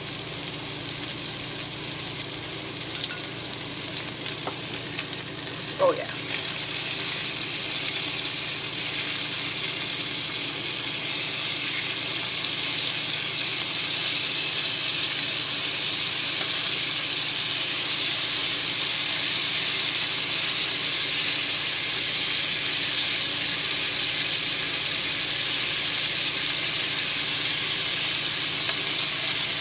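Chunks of beef chuck searing in hot fat in an enameled cast-iron Dutch oven on an induction hob, with a steady sizzle as they brown. A brief squeak comes about six seconds in, and the sizzle is a little louder after it.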